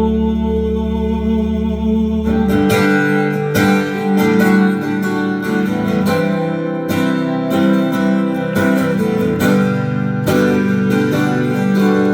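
Instrumental break of a live song: a held chord, then acoustic guitar strumming in a steady rhythm with band accompaniment from about two and a half seconds in.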